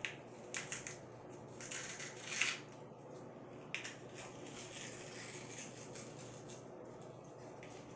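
A candy wrapper being handled and opened: a few short, faint crinkles and rustles of packaging, about half a second in, after two seconds, and near four seconds, with quiet handling between.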